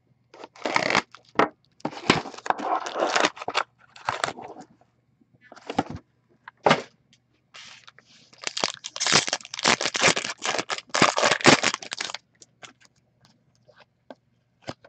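Hands tearing open a cardboard hockey card box and then crinkling and ripping the foil wrappers of the card packs inside: a string of short ripping, crinkling bursts, sparse at first and busiest just after the middle.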